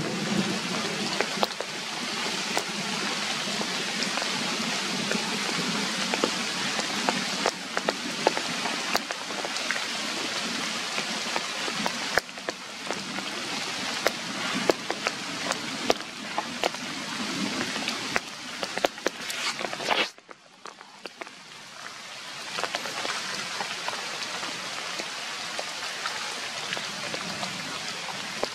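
Steady rain falling on wet ground and puddles, with many sharp single drop strikes scattered through it. About two-thirds of the way through it cuts off abruptly, then comes back quieter.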